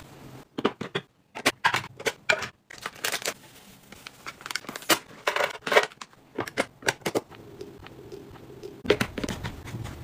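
Food packaging and clear plastic storage containers being handled: wrappers crinkling and rustling and dry food tapping into the canisters. It comes as a string of sharp, irregular clicks and crackles.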